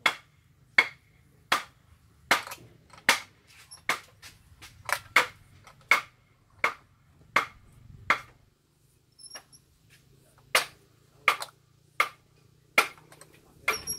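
A steady series of sharp knocks, about one every 0.8 seconds, pausing for about two seconds past the middle, made by hand work at the rear of a motorcycle by the exhaust, where a homemade drink-can exhaust is being fitted.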